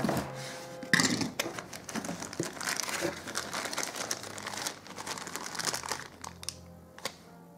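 Clear plastic bags holding toy figures crinkling and rustling as they are handled and lifted out of a cardboard box. A sharp rustle about a second in, then uneven crinkling that dies away near the end.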